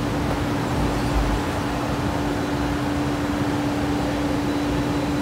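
Steady mechanical hum: an even rushing noise with one constant low-mid drone tone, unchanging throughout.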